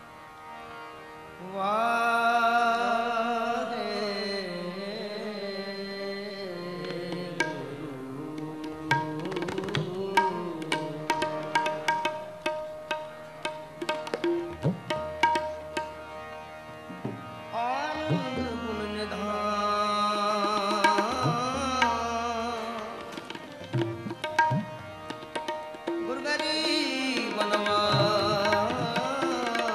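Sikh Gurbani kirtan: a male voice singing a hymn to harmonium and tabla, the music coming in about a second and a half in, with a quick run of tabla strokes in the middle.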